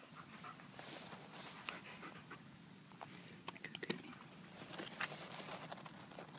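A tracking dog with its nose in the grass, panting and sniffing, with short chewing clicks as it picks up food laid in the track; a quick run of clicks comes about halfway through.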